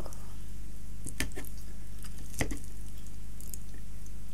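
A fork working through a plate of chowmein noodles: wet noodles squish as they are twirled and lifted, and the fork clicks sharply against the plate twice, about a second apart. A steady low hum runs underneath.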